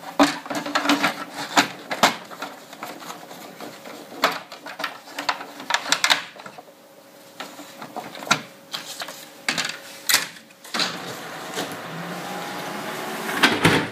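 Hard plastic clicks, knocks and rattles as the waste toner container of a Konica Minolta bizhub C554e copier is handled, unlatched and slotted back into place. Near the end a steady whir sets in, followed by a few loud knocks.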